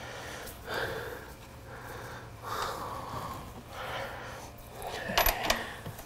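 A man breathing close by in three or four slow, soft swells, then a quick run of light metallic clicks about five seconds in.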